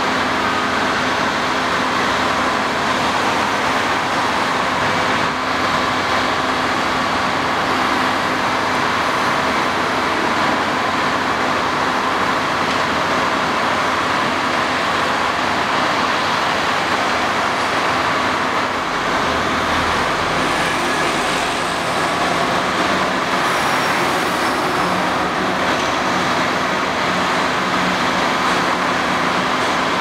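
Steady construction-site machinery noise: a Liebherr LB28 drilling rig's diesel engine running, mixed with road traffic, with a brief low rumble about twenty seconds in.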